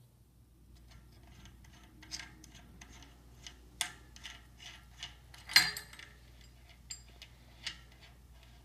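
Small metallic clicks and ticks at an irregular pace, a few a second, as the axle nut is spun off a bicycle's coaster-brake hub by hand and the steel brake arm is worked loose. One louder clack comes about halfway through.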